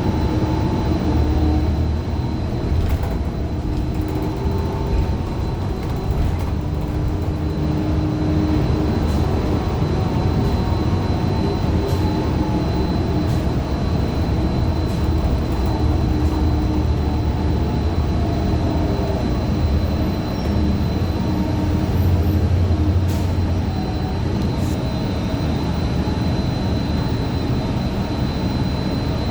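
Cabin noise of a Gillig low-floor CNG transit bus under way: the Cummins Westport ISL G engine and driveline give a low rumble with whining tones that slowly rise and fall in pitch, over a thin steady high whine and occasional rattles. Its Allison B400R transmission is, by the rider's account, messed up.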